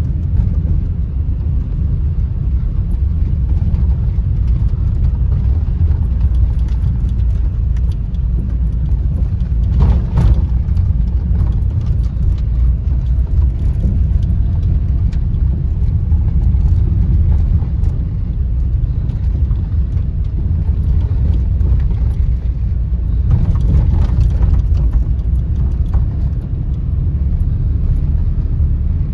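Renault Twingo driving over a rough, uneven road: steady low rumble of tyres and running gear, with a few sharp knocks from the suspension over bumps, about ten seconds in and again near the end. The knocking comes from the rear and is the sign of a broken rear coil spring.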